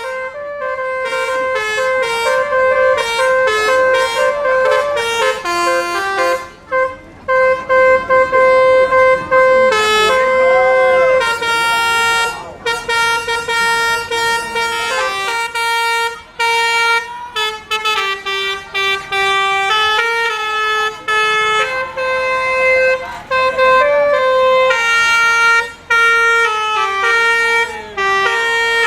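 Basuri V4 telolet horn of a Tunggal Jaya bus playing a melody of held notes that step up and down in pitch, phrase after phrase with short breaks between.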